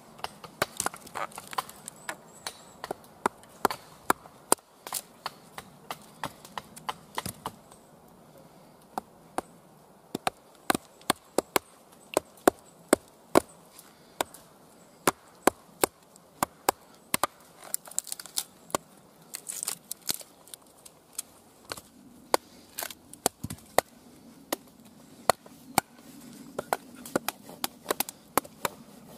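A wooden baton repeatedly striking the spine of a Fallkniven Idun knife to split wood on a chopping stump: sharp knocks at an irregular one or two a second, with a short lull about eight seconds in.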